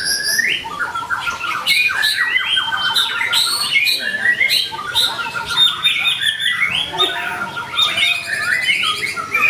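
White-rumped shama (murai batu) singing continuously and energetically: a rapid run of varied whistled phrases broken by fast chattering trills and rattles.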